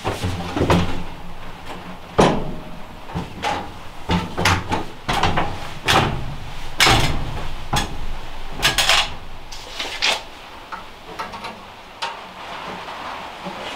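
Irregular clunks, knocks and clatter of hands working with sheet-metal stovepipe and tools. The hits come at uneven spacing and the loudest fall in the middle.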